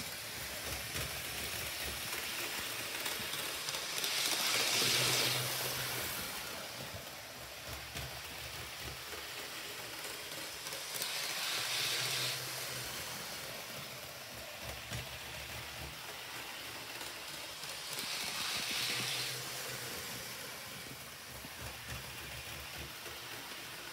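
Hornby Class 101 three-car model train running around its track: the steady running noise of its electric motor and wheels on the rails, swelling three times, about every seven seconds, as it comes past close.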